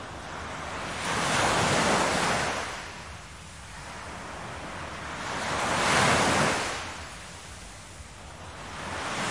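Ocean surf: waves washing in, the sound swelling and falling away in slow surges about four seconds apart, with another building near the end.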